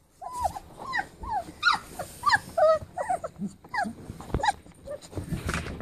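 Three-week-old Goldendoodle puppies whining, a string of short, high cries that rise and fall, two or three a second.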